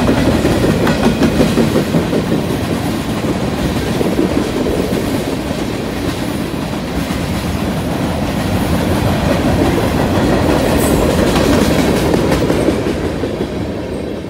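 Freight train's covered hoppers and tank cars rolling past, wheels clacking over the rail joints. The sound falls away near the end as the last cars go by.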